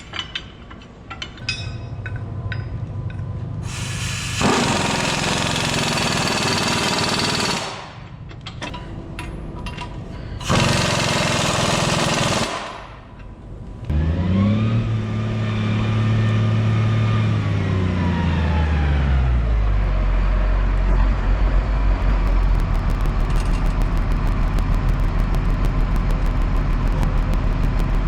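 A few metal clinks, then two loud rushing noises of a few seconds each. After that a tractor engine starts: its note drops over several seconds and settles into a steady low running hum.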